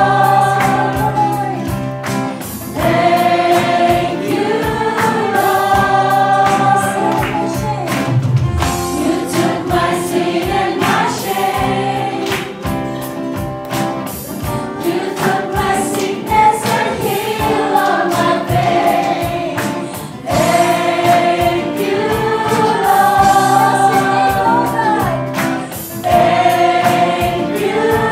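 Gospel worship song: women singing into microphones over amplified instrumental accompaniment with a steady beat.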